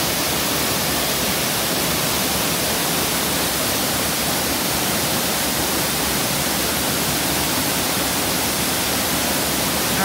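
Waterfall's steady rush as it plunges into a rocky pool: an even, unbroken hiss of falling water.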